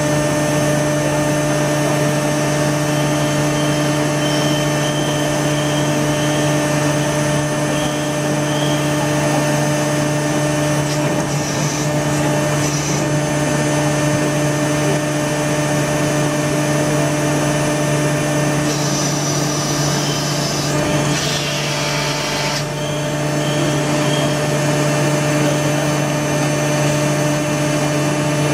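Injection moulding machine running a PVC elbow mould test: a steady mechanical hum with a low, even tone. A hiss lasts about three seconds around two-thirds of the way through.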